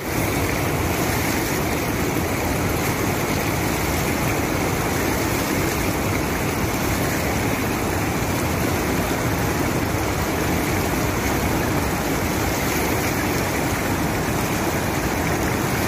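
Muddy wadi floodwater spilling over a weir and rushing downstream: a loud, steady rush of water with no let-up.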